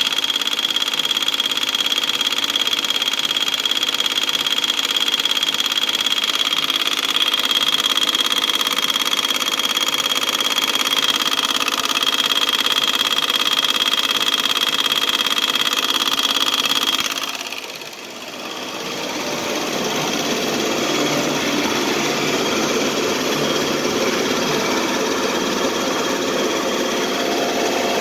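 Fiat 500L engine running with its faulty A/C compressor making noise: a steady high-pitched whine for about the first seventeen seconds, then a brief drop in level and a rougher, less even mechanical noise.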